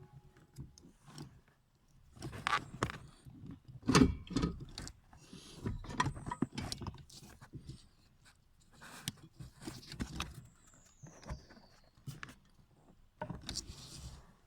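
Irregular knocks, clicks and rattles of hand tools and metal and plastic parts being handled during car repair work, with the loudest knock about four seconds in. About ten seconds in comes a brief high squeak that falls in pitch.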